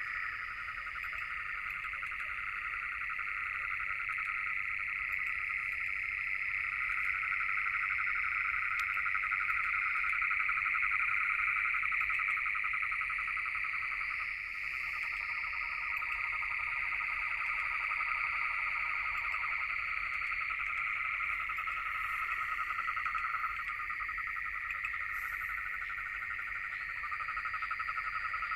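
A dense, continuous chorus of many frogs calling together, a fast trilling held at two steady pitches.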